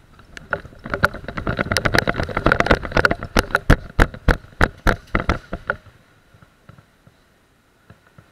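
Running footsteps on a concrete floor, with gear rattling and knocking against a body-worn camera. The thuds come irregularly, about three to five a second, for some five seconds, then stop.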